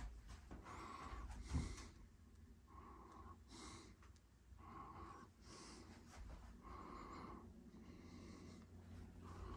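Faint breathing close to the microphone: soft, hissy breaths in and out, about one a second.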